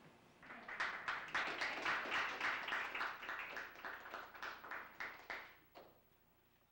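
A small audience applauding with hand claps. It starts about half a second in, dies away after about five seconds, and one last single clap follows.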